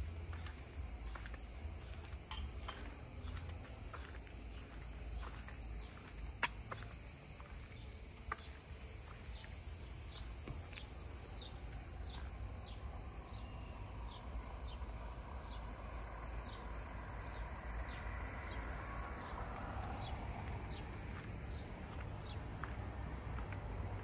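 Cicadas in the surrounding pines buzzing in a steady high chorus, with footsteps on paving at an even walking pace through the first half. A faint motor hum swells near the end.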